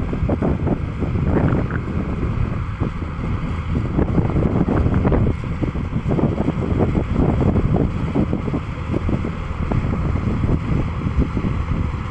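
Tractor engine working steadily under load while pulling a plough through grassland, with strong wind buffeting the microphone.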